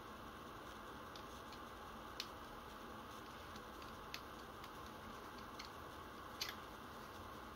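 Sparse light clicks of small parts of a Tokyo Marui SAA .45 model revolver being handled, its barrel and a thin metal rod worked by gloved hands: four separate clicks a second or two apart, the loudest near the end, over a faint steady hiss.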